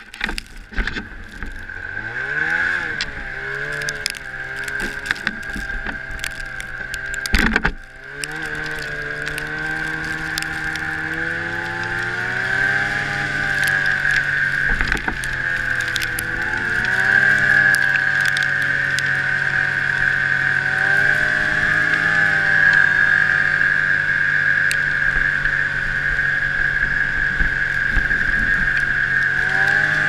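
Arctic Cat ZR500 snowmobile's two-stroke twin engine running under way, revving up and easing off several times, with a steady high tone over it. There is one sharp knock about seven seconds in.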